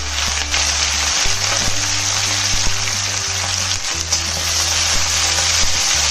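Cabbage sizzling in hot oil in a kadai as it is stir-fried, a steady loud hiss with faint scraping ticks.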